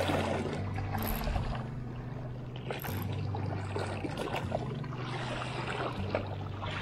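Water sloshing and washing over low background music whose bass notes change every second or two.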